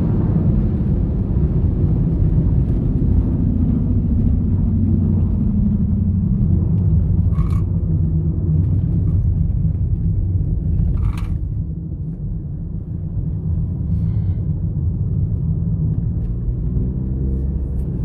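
Inside the cabin of a moving Volkswagen Jetta 1.4 turbo: a steady low rumble of engine and road noise. Its pitch falls gently over the first few seconds, dips briefly about twelve seconds in, and rises again near the end as the car speeds up. Two brief clicks sound in the middle.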